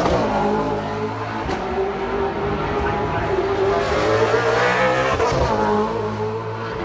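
650-horsepower V8 Supercars race cars running hard past the track side, the engine note rising and falling as they accelerate and change gear.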